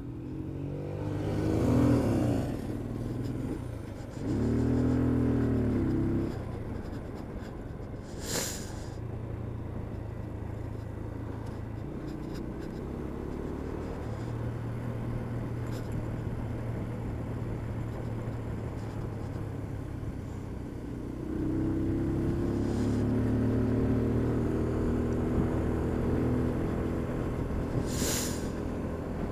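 Motorcycle engine under way, revving up and easing off in two short surges near the start, running steadier in the middle, then pulling through a longer rise in pitch near the end. Two brief sharp noises cut in, about eight seconds in and near the end.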